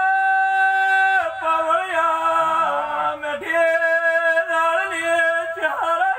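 A man singing a devotional song in long held notes: a steady note for about a second at the start, a short wavering run, then a second long held note before the voice slides down near the end.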